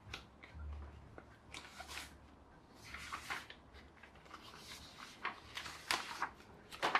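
Sheets of paper rustling as they are picked up and shuffled by hand, in several short bursts.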